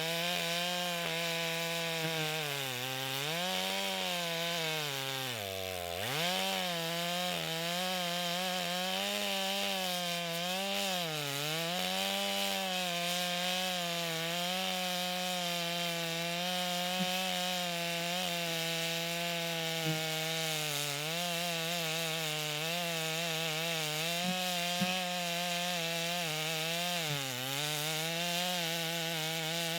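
Big Stihl two-stroke chainsaw cutting down through a log with the full bar buried, the engine holding a steady high pitch under load. Its speed sags briefly and recovers several times as it bogs in the cut, most deeply about six seconds in.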